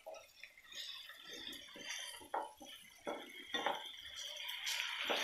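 Wooden spatula stirring and scraping a thick sauce in a nonstick frying pan, a few faint strokes, with a sizzle from the pan growing louder near the end.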